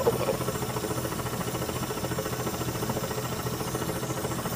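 High-frequency chest wall oscillation vest running during a cystic fibrosis airway-clearance treatment: a steady machine hum with a rapid, even pulsing, alongside a nebulizer.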